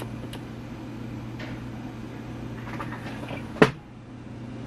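Quiet kitchen handling sounds over a steady low hum, then a single sharp knock about three and a half seconds in, typical of a kitchen cupboard door shutting.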